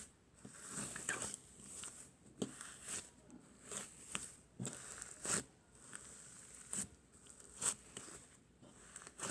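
Slime being pressed and stretched by hand, making irregular sticky crackles and pops, about one or two a second.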